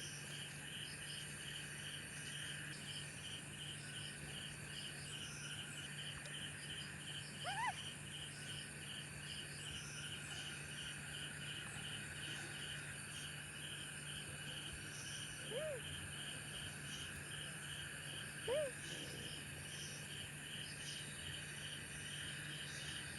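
Crickets and other insects trilling steadily, with one chirp pulsing about twice a second. Three times, a short rising call from another animal stands out over them: once about a third of the way in, and twice more in the second half. These calls are the loudest sounds.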